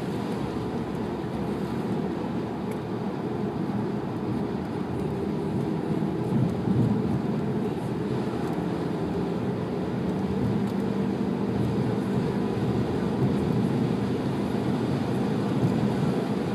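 Car driving at road speed, heard from inside the cabin: a steady low drone of engine and tyre noise, with the engine's pitch shifting a little.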